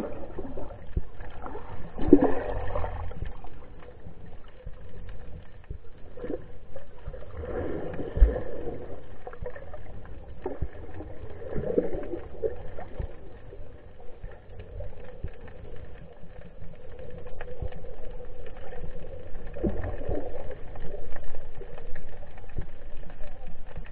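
Muffled water sound heard from under the surface: low sloshing with several louder swooshes of water moving past, and one short thump about eight seconds in.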